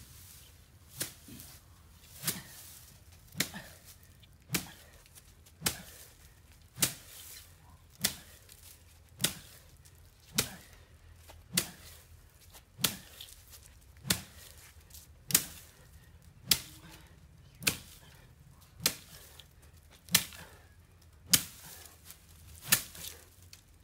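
A long bamboo pole beating down on a heap of dry straw, a sharp whack about every 1.2 seconds, each followed by a lighter second tap.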